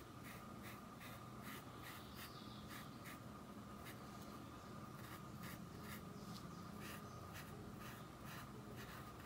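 Faint, even scratching of a wide paintbrush dabbing white fabric paint onto cloth, about three short strokes a second.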